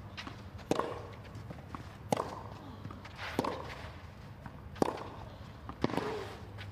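Tennis rally on a clay court: tennis balls struck by rackets, about five sharp hits spaced a little over a second apart.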